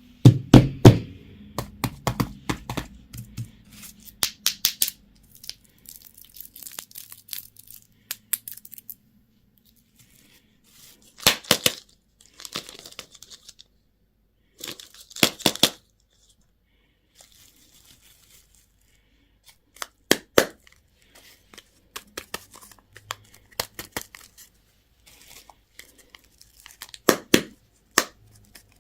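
Plastic candy wrappers being crinkled and torn open, in bursts of sharp crackling with short pauses between.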